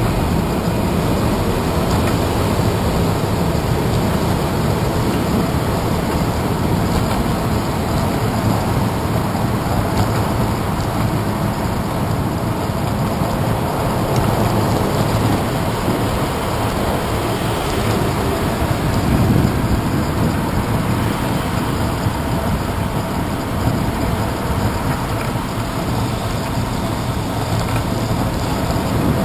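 Steady rushing noise of a bicycle ride picked up by a handlebar-mounted GoPro: wind over the camera and tyre and road rumble, strongest at the low end.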